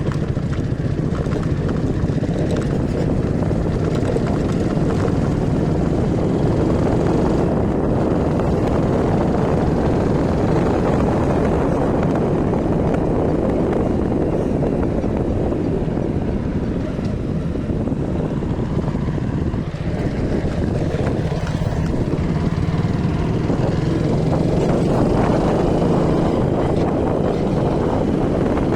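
A vehicle travelling on the road: steady engine and road noise with wind rushing over the microphone. A low engine hum fades in and out.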